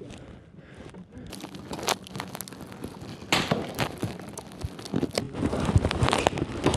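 Close handling noise from gear right against a body-worn camera's microphone: rustling, scraping and sharp knocks. The knocks come thicker and louder in the last two seconds.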